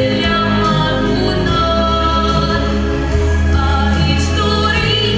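A girl's solo voice singing through a stage microphone over an instrumental backing track, holding long notes with vibrato above steady bass notes.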